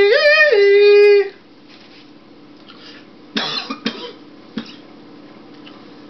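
A person's long, high wordless wail, wavering and then held, cutting off about a second in. A little past the middle come two short coughs, then a fainter one.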